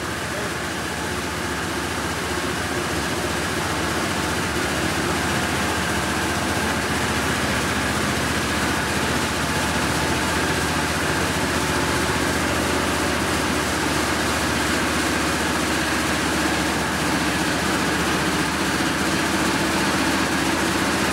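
Magic Wand Nexus touch-free car wash running its high-pressure rinse: water jets spraying the car with a steady hiss over a steady machine hum, growing slightly louder as the spray arm comes closer.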